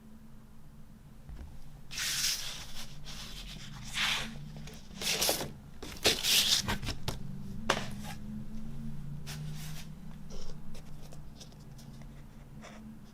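Hands handling a vinyl record's packaging: several short bursts of paper or plastic rustling and sliding, followed by lighter rubs and small clicks.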